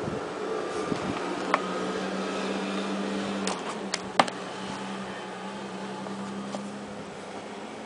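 Handling of a CD album's packaging: a few sharp clicks and taps, over a steady low hum in a small room.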